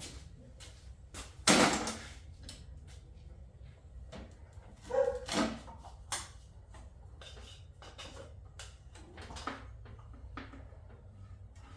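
Scattered knocks and clicks of objects being handled, the loudest a sharp knock about one and a half seconds in and a few more around five seconds, over a steady low hum.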